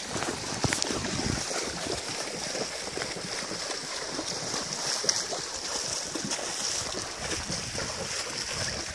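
Horses walking through shallow lake water, their hooves splashing steadily.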